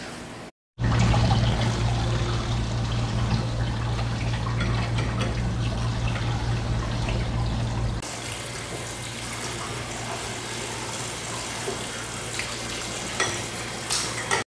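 Tap water running and splashing onto a wet stainless-steel work surface. A steady low hum underlies it until about halfway, then stops. A few sharp clicks come near the end.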